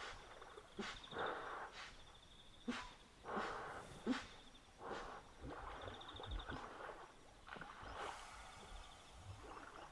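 Hippopotamus grunts and wheezy, snorting breaths: a series of short bursts, one every second or so, over a faint high pulsing trill.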